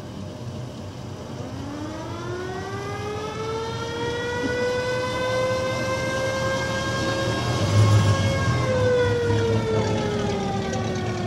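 Siren on a vintage emergency vehicle, slowly winding up in pitch, holding a steady wail, then winding down near the end. A brief low rumble comes about eight seconds in.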